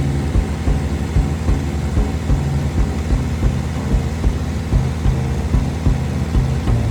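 Background music with a steady beat and a stepping bass line, over the steady drone of a small propeller plane's engine in flight.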